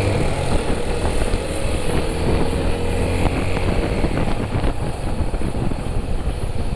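Motorcycle engine running at road speed while riding, mixed with ragged wind rumble on the microphone.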